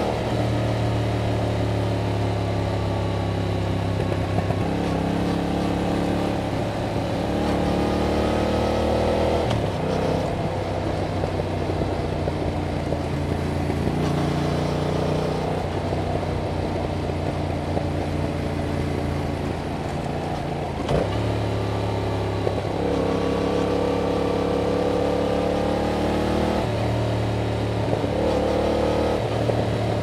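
2021 Yamaha MT-07's 689 cc parallel-twin engine through its stock exhaust, running under changing throttle while riding. The pitch rises and falls, and breaks off every few seconds, at about 4, 9, 14, 21 and 26 seconds in, as the bike moves through the gears.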